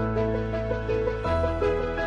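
Background music: a gentle melody of quick notes over long held bass notes.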